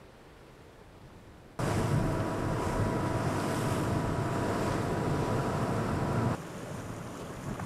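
Wind buffeting the microphone and water rushing and spraying along a racing yacht's bow as it drives through choppy waves, starting suddenly about a second and a half in and dropping back to a softer rush near the end.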